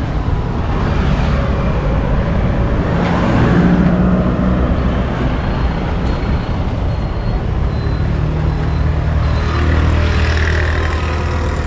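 Road traffic: motor vehicle engines running and passing, as a continuous low rumble that settles into a steadier engine hum in the last few seconds.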